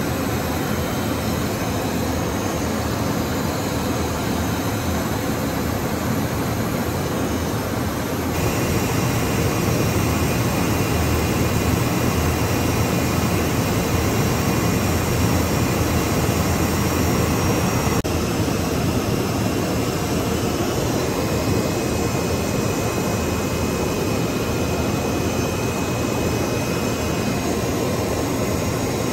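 Steady jet engine and airflow rush heard from inside a jet cockpit in flight. The level steps up slightly about eight seconds in, where a faint high whine joins the rush.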